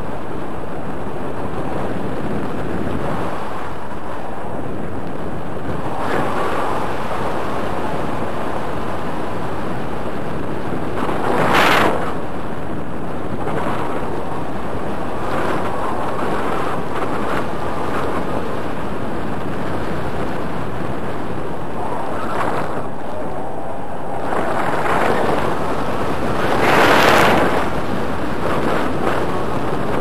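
Airflow rushing over the camera's microphone in flight under a tandem paraglider, a steady buffeting with two louder gusts, about twelve seconds in and again near the end.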